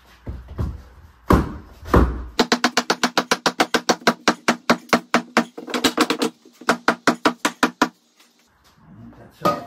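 Hand hammer striking a wooden framing piece to drive it into place in a wall opening: three heavy blows, then a fast even run of about five blows a second for some five seconds, with the wood ringing at a steady pitch.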